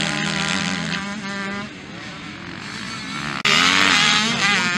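Several motocross bikes' engines revving as the bikes ride the dirt track, their pitch rising and falling with the throttle. About three and a half seconds in, the sound cuts suddenly to a much louder, closer engine revving hard.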